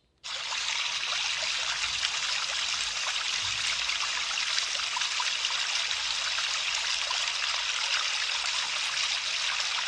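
Recorded water running and trickling steadily, a continuous hissy splashing with small bubbling flecks, starting abruptly.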